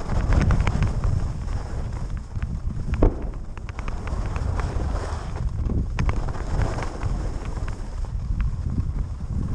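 Wind buffeting the camera microphone while skiing downhill at speed, with the scrape and chatter of skis on packed, groomed snow and a sharper knock about three seconds in.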